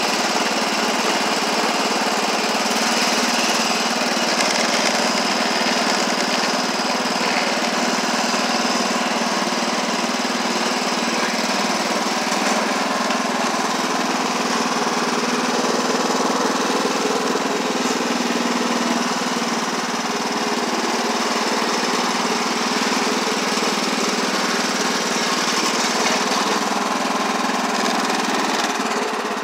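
Wheel Horse 314-8 garden tractor's engine running steadily at a constant speed while the tractor is driven along.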